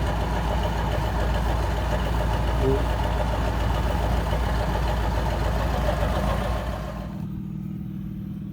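Massey Ferguson 390 tractor's diesel engine running steadily. About seven seconds in the sound drops away abruptly, leaving a quieter low hum.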